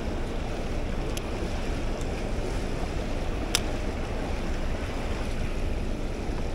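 Steady rushing of fast river water pouring below a dam spillway. A single sharp click comes about three and a half seconds in.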